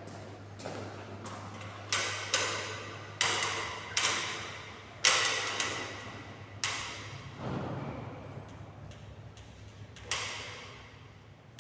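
About eight sharp knocks at uneven intervals, each trailing off in a ringing echo, over a steady low hum.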